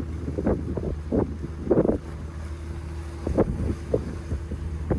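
Wind buffeting the phone's microphone in irregular gusts over the steady low drone of a squid-fishing boat's engine running at speed.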